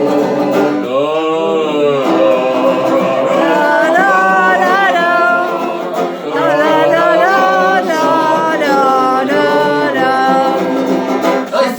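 A small group of men singing a Christmas song together, without words in the recognisable lyrics, holding long, wavering and swooping notes.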